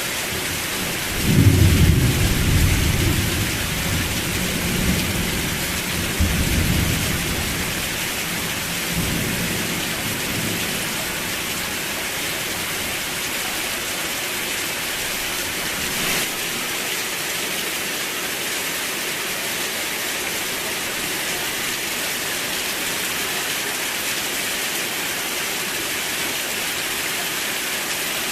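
Steady, heavy rain falling, with a roll of thunder about a second in that rumbles for several seconds, swelling again twice before it fades away.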